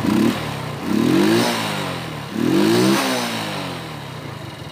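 Small 50cc scooter engine, running on a Honda Biz 125 CDI fitted in place of its failed original, revved twice with the throttle, each time rising sharply and falling back toward idle. It runs and picks up cleanly on the adapted CDI.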